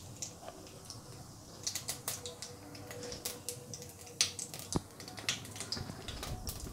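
Whole cumin seeds crackling and sizzling in hot cooking oil in a pan, a fast irregular scatter of small sharp pops over a faint hiss: the tempering stage, the oil hot enough to make the seeds pop.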